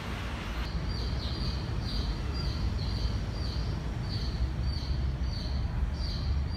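A high, short chirp repeated evenly about twice a second, each note dropping at its end, starting about a second in, over a low steady hum.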